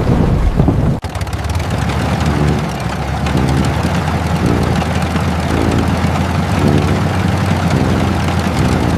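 Small farm tractor engine running steadily under load while plowing, with a low drone and a pulse that repeats about once a second.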